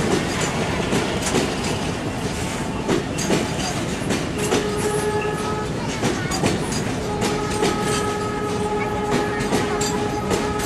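Tank wagons of a freight train rolling past, wheels clattering over the rail joints. A steady horn note sounds briefly about four seconds in and again for about four seconds near the end.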